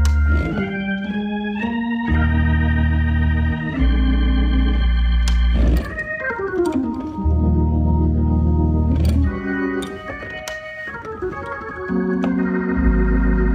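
Organ played solo: held chords over deep bass notes that drop out and come back in, with a quick downward run of notes about six seconds in.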